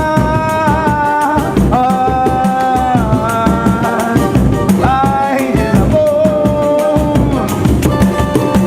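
Samba-pagode band playing: a melody of held notes over drums and percussion with a steady beat.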